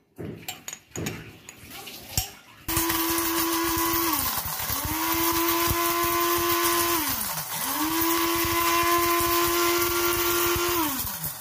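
Moulinex electric blade grinder whirring as it grinds whole black peppercorns and cumin seeds to a coarse powder. It runs in three pulses: a loud steady motor whine that sags in pitch twice as the switch is let go and pressed again, then winds down near the end. Before the motor starts there are a few light clicks as the lid is fitted.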